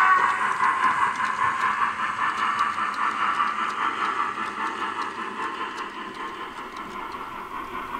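H0-scale model freight train running on the layout: the whir of the Elkom 556.0 steam locomotive's motor and the rattle of the hopper wagons' wheels on the track, growing fainter as the train moves off into the tunnel.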